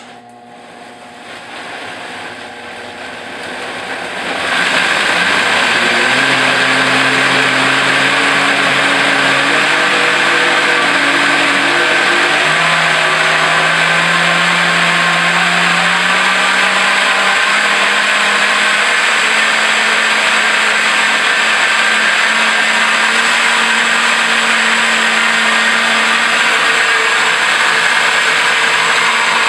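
Cleanblend 3-horsepower blender switched on with a click, its motor climbing in speed and loudness over the first four seconds or so, then running at full speed, blending ripe bananas, dates, hemp seeds and water into a smoothie. Its motor pitch rises in steps over the next ten seconds or so, then holds steady.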